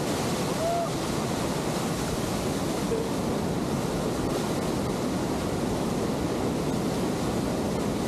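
Waterfall rushing steadily close by, with wind buffeting the microphone.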